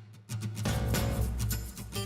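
Music with a steady beat: sparse hits at first, then it fills out and gets louder about half a second in.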